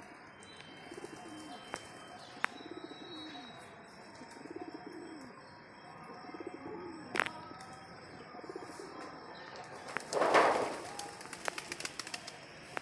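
Pigeons cooing, low arched coos repeating about every two seconds, with a few sharp clicks. About ten seconds in comes a loud rustling burst, followed by a quick run of clicks.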